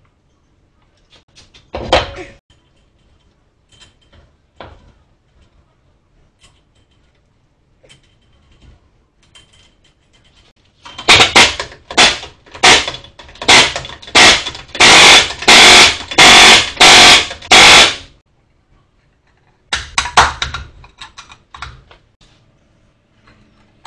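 Impact wrench running the lug nuts onto a minivan's front wheel in about nine short bursts, each under a second, with a few shorter bursts near the end. A single clunk comes about two seconds in.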